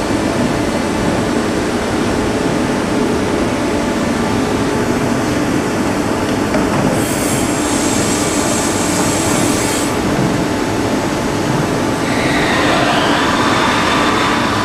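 Large CNC bed-type milling and boring centre running, with a steady mechanical noise and whine. About seven seconds in, a high-pitched tone sounds for a few seconds, and near the end a tone glides in pitch and settles into a steady high whine.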